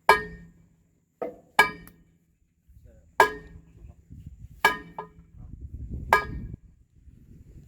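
Hammer blows on steel excavator parts, six sharp strikes at uneven intervals, each ringing briefly with a clear metallic tone, as the parts are knocked apart during disassembly.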